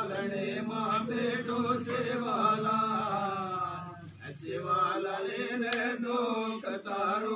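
Men chanting a Banjara devotional prayer in long, drawn-out held notes, breaking off briefly about four seconds in before going on.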